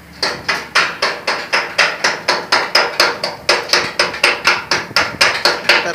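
Steady hand-hammering on a ship's steel door frame: sharp blows at about four a second, each with a short ring.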